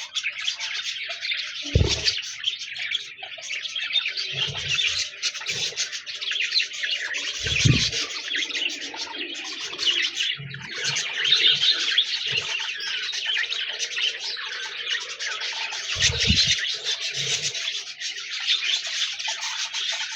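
Budgerigars chattering and warbling continuously in a dense stream of chirps, with a few short low thumps in between.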